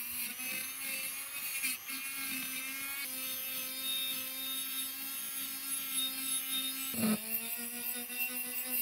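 Electric power tool motor running steadily with an even hum, briefly dipping in pitch and coming back up about seven seconds in, as if loaded for a moment.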